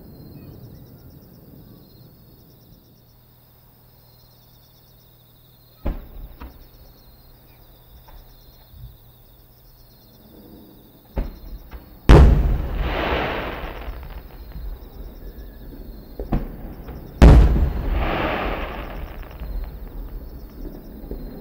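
Aerial firework shells bursting: a sharp bang about six seconds in and a few lighter pops, then two much louder booms about five seconds apart, each rumbling on for several seconds as it echoes away.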